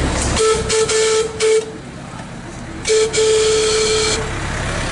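Locomotive whistle on a diesel-converted Krauss narrow-gauge locomotive: two blasts about a second apart, the first choppy and broken into short toots, the second a steadier toot. Each is one steady tone with a hiss over it.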